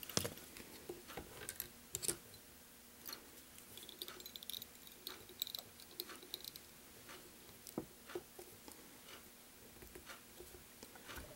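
Faint, scattered small clicks and taps from handling fly-tying tools at the vise, such as hackle pliers and thread, while hackle is wound onto a small dry fly.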